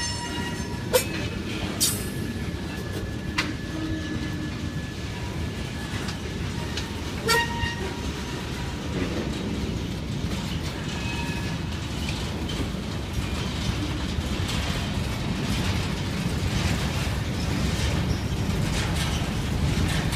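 Freight train's tank and covered hopper cars rolling past at close range: a steady rumble of steel wheels on rail, with sharp clanks about a second in, near two seconds and again around seven seconds. The rumble grows a little louder over the last few seconds.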